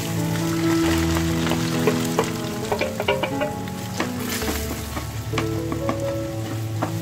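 Chopped onions sizzling in hot oil and ghee as they are tipped into a nonstick kadai and stirred with a spatula, with scrapes and taps of the spatula against the pan.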